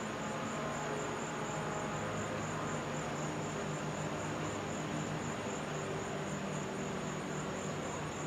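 Insects in the grass making a steady, high-pitched trill with a fast, even pulse, over a low steady hum.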